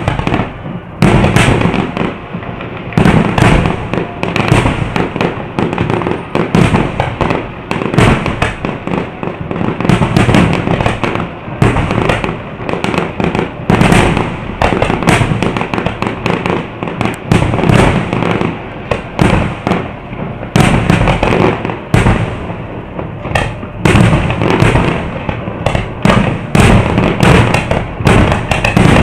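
Fireworks display: aerial shells bursting in a dense, continuous barrage of bangs, several a second.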